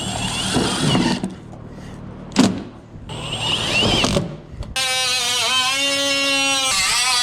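Power drill driving roofing screws through metal roof trim: a few short runs of about a second each, then one longer run of about three seconds near the end with a steady motor whine that dips slightly under load.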